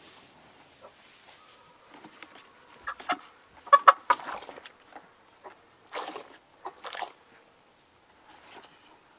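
Black Copper Marans rooster giving short squawks while being washed in a tub of soapy water, the loudest a quick run about four seconds in, with two splashes of water around six and seven seconds.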